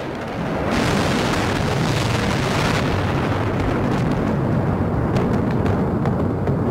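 Bombardment explosions, from bombs and cruise missiles striking a city: a loud, sustained rumbling roar that swells about a second in. Its hiss thins after about three seconds, leaving a deep rumble with a few sharp cracks near the end.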